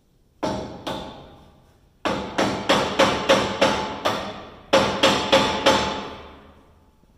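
Hammer blows on a steel screwdriver wedged into a Massey Ferguson combine's threshing cylinder assembly, metal on metal with the steel ringing after each hit. Two blows, a pause, a run of about eight steady blows at roughly three a second, then four more, each ringing away.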